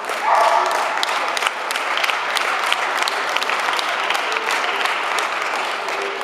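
Crowd of spectators applauding, steady dense clapping throughout, with a short pitched call just after it begins.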